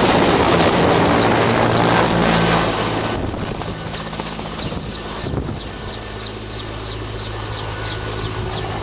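Mi-8 helicopter passing close overhead and flying away, its rotor and turbine noise loud at first and dropping off about three seconds in, leaving a rapid regular rotor chop as it recedes.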